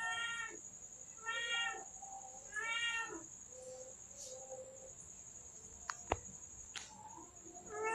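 Domestic cat meowing: three clear meows about a second and a half apart, each about half a second long, then quieter calls and another meow starting near the end.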